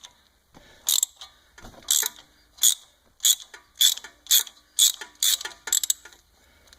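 Ratchet wrench worked back and forth on a rusty, seized bolt: short runs of pawl clicks about twice a second, the hand's quick strokes on the handle.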